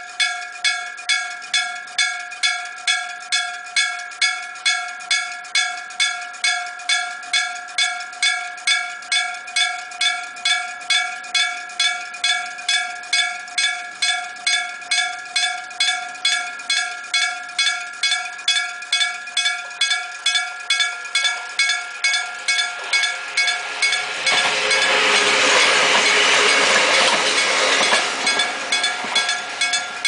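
Old-type electric-bell level crossing warning signal striking steadily, about two and a half strokes a second, each a ringing metal tone with several overtones. About two-thirds of the way through, a train passes over the crossing for about five seconds, louder than the bell, which keeps ringing throughout.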